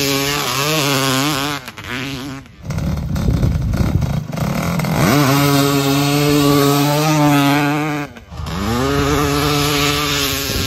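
Honda CR500 single-cylinder two-stroke dirt bike engine revving hard in sand. The pitch wavers, then sweeps up and holds at high revs. It breaks off abruptly twice, and a stretch of rushing noise without the engine tone comes about a third of the way in.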